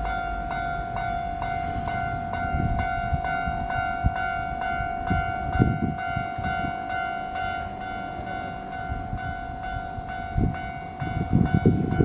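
Japanese railway level-crossing warning bell ringing steadily, about two strokes a second: the crossing is active and its barriers are coming down for a train. Near the end a run of low thumps and rumbles joins in.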